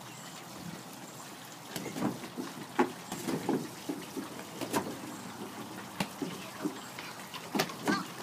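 Scattered thumps and knocks of children playing on a wooden deck, with a quick pair of louder ones near the end.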